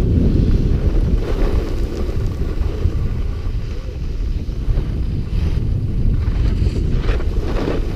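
Wind buffeting the microphone of a skier's action camera while moving downhill, a heavy steady rumble, with the hiss and scrape of skis turning on groomed snow a few times.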